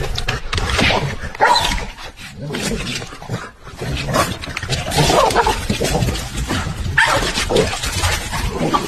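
Dog barking and vocalizing in irregular bursts, with short pauses between them.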